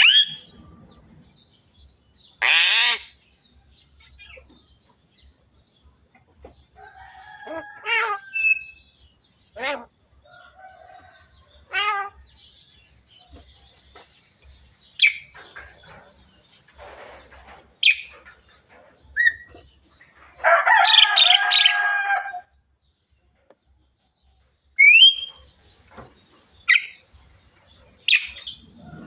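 Javan myna (jalak kebo) calling in separate short bursts every second or few: sharp whistles, some rising, mixed with harsh squawks. The loudest is one longer, harsh, many-layered call about two-thirds of the way through.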